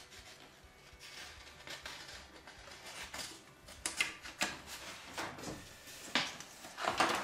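A sheet of paper rustling and scraping under a hand on a wooden bench top, mixed with short knocks and clicks from F-clamps being handled. The noises come unevenly, louder from about four seconds in, with the loudest near the end.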